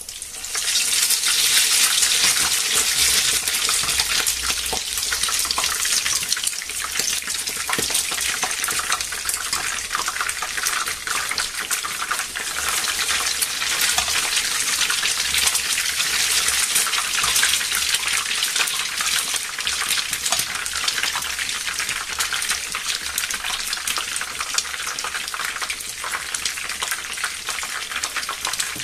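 Hot oil sizzling and crackling in a frying pan around frying slices of milk-and-egg-soaked bread, surging loudest just after a fresh soaked slice goes into the oil, then settling to a steady sizzle.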